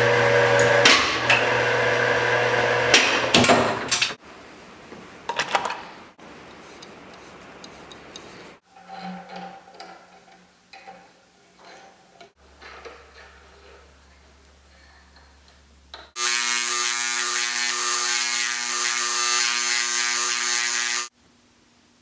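Woodworking shop sounds in short cuts. A power tool runs loudly for the first few seconds, then come quieter knocks and handling noises. Near the end a power tool with a steady whine runs loudly for about five seconds and cuts off suddenly.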